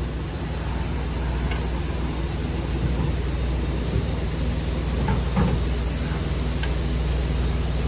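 Heavy-truck diesel engine idling steadily, with a couple of faint clicks partway through.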